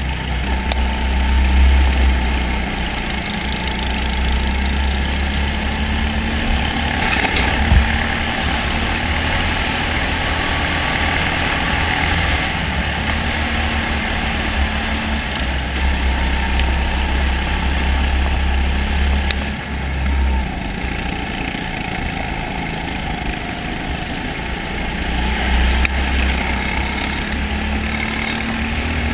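Go-kart engines running at racing speed, heard from on board one kart in a pack, with heavy wind rumble on the microphone. A single sharp knock sounds about eight seconds in.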